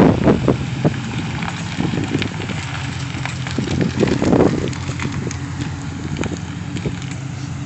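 Ford F-150 pickup's engine running with a steady low hum, with crackling wind buffeting on the microphone.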